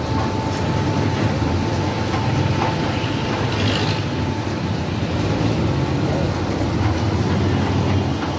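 Electric meat mincer running steadily, its motor humming as beef is fed through the hopper and ground.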